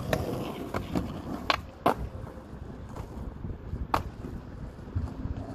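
Skateboard rolling on asphalt with a low, steady wheel rumble, broken by several sharp clacks of the board hitting the ground, the loudest about four seconds in.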